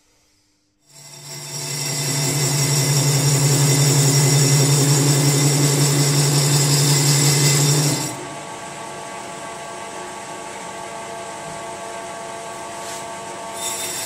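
Metal lathe starting up about a second in and running with the final drive gear ring on its faceplate, the part being turned to its overall diameter. Loud for several seconds with a strong low hum and high steady tones, then dropping to a quieter steady running sound about eight seconds in.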